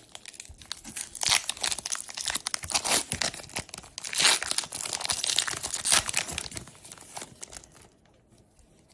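Foil wrapper of a Pokémon TCG booster pack being torn open and crinkled by hand, an irregular crackling that goes quiet about a second before the end.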